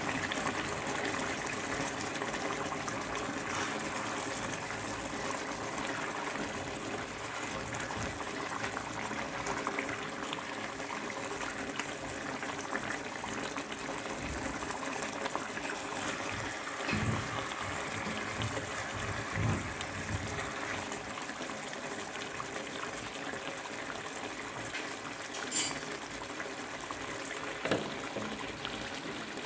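Coconut fish curry simmering and bubbling in a pot on a gas stove, a steady liquid sizzle. A few knocks of the spatula against the pot come about halfway and near the end.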